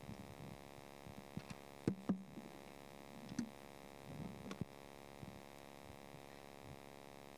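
Steady electrical hum from the room's microphone and sound system, with a few faint knocks and rustles about two, three and a half, and four and a half seconds in.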